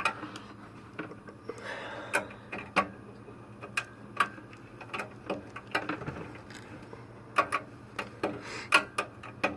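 Irregular clicks and knocks of a hand-crimped Cat5 cable's RJ45 plug being fumbled against and into the network port at the back of a desktop computer, over a low steady hum.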